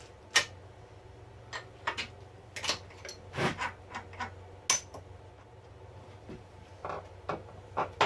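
Sharp metallic clicks and clinks, a dozen or so at uneven intervals, as a tool is taken out of a mini mill's spindle, over a low steady hum.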